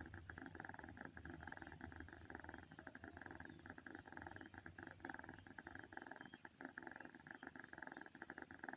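Snoring: a steady, fast rattling rasp that goes on with only brief breaks.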